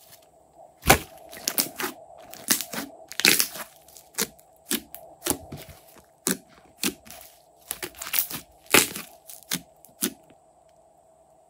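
Slime being squeezed and poked, with a quick irregular run of sharp cracks and pops from air pockets bursting, the loudest about a second in.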